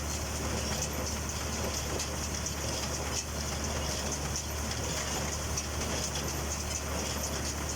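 Massey Ferguson 126 baler running behind a tractor: a steady mechanical clatter over the tractor engine's low drone, with faint knocks now and then.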